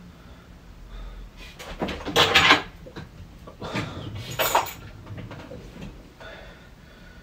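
Objects being handled and moved about in a desk shelf, in two rough bursts of scraping and clatter about two and four seconds in, with fainter scuffs between and after.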